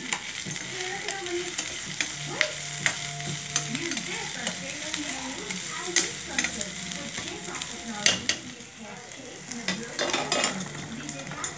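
Sliced onions and ginger sizzling in oil in a stainless steel pan while a utensil stirs them, scraping and clicking against the pan at the sautéing stage.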